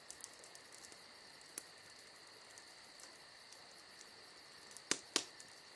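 Insects chirping in a steady, high trill with evenly repeating pulses, and two sharp clicks about five seconds in.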